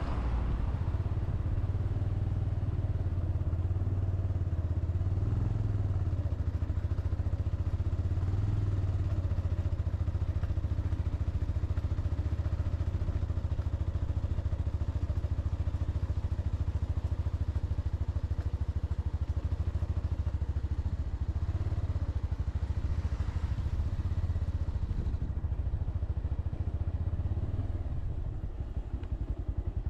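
Motorcycle engine running steadily under way, its pitch wavering a little over the first ten seconds and easing slightly near the end.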